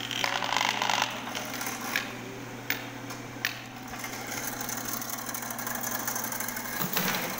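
Electric drum-type drain cleaning machine running with a steady motor hum, its coiled cable scraping and rattling: a burst of scraping in the first second, then three sharp clicks less than a second apart, and another scrape near the end.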